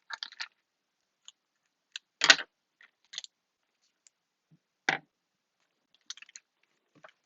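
Scattered light clicks and rustles of small cut-out craft pieces and tape being handled and laid out. Two louder clacks come about two seconds in and again about five seconds in.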